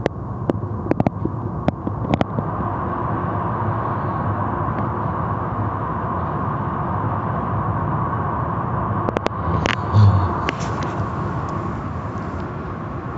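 Automatic car wash heard from inside the car: a steady rushing of spinning cloth brushes and water against the body and glass. Scattered slaps run through it, and a heavier thump comes about ten seconds in.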